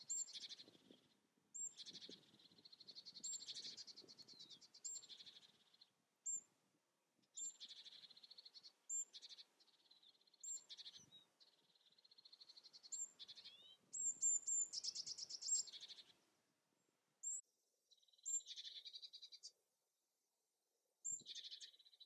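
Small songbird singing: repeated high phrases of rapid trilled notes, each a second or two long, with short sharp high notes between them and brief pauses.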